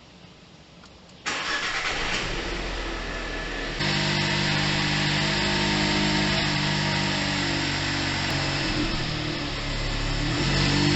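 Volkswagen Polo 1.0 TSI three-cylinder turbo petrol engine, on its stock air filter and intake, starting suddenly about a second in and then running at a steady idle, a step louder from about four seconds in. A typical TSI three-cylinder sound.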